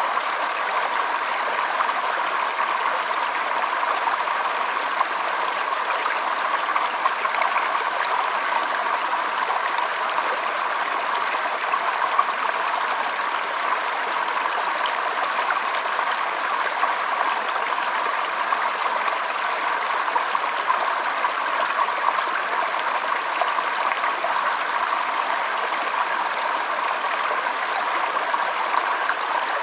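Water of a stream running steadily, an even rush with small irregular splashes.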